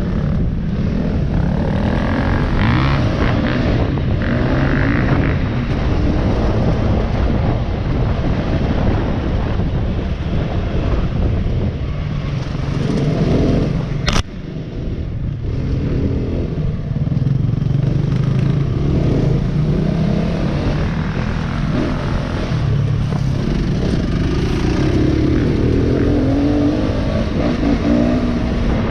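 Off-road motorbike engine running under way, its pitch rising and falling as the throttle is worked. A single sharp knock about halfway through.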